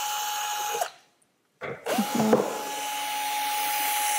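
Cordless drill-driver running to back out the screws of a small flat metal connector. A steady motor whine stops about a second in, and after a short pause the motor spins up again and runs steadily on.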